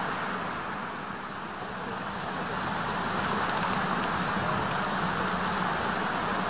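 Steady outdoor background noise: an even rumbling hiss with a faint low hum, like distant traffic or machinery, and a couple of faint ticks.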